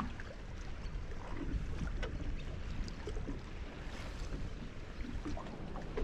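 Wind rumbling on the microphone over water lapping at the hull of a small boat: a steady low noise with a few faint ticks.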